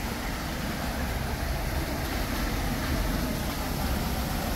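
Water rushing out of a canal lock chamber as it is emptied to the lower level, a steady low rumble.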